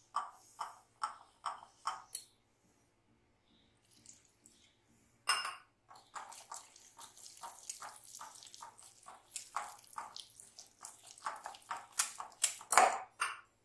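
Wire whisk beating jalebi batter of flour, curd and water in a glass bowl, about two strokes a second, clinking and scraping against the glass. After a pause of about three seconds the beating picks up and turns faster and busier, with the loudest strike near the end.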